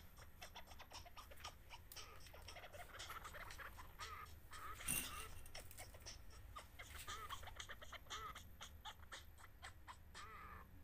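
Faint short chirps of a bird, repeating every second or two, over light clicks and rustles of hands handling small parts. A brief louder rustle comes about five seconds in.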